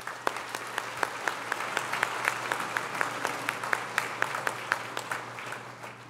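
Audience applauding, a dense patter of many hands with a few sharp single claps standing out, dying away near the end.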